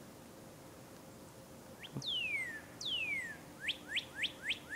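Northern cardinal singing: about two seconds in come two long whistles sliding down in pitch, followed by a quick run of short whistled notes, about four a second.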